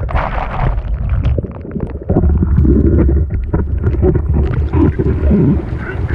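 Whitewater foaming and splashing around a surfboard, heard from a GoPro on the board's nose just above the water, with wind buffeting the microphone as a heavy low rumble. The level dips briefly about two seconds in, then the rush and splatter pick back up.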